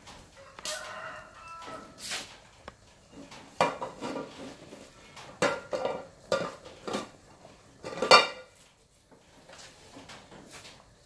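Chickens calling, with the loudest call, a rooster's crow, about eight seconds in, mixed with knocks and clinks of cooking pots and utensils.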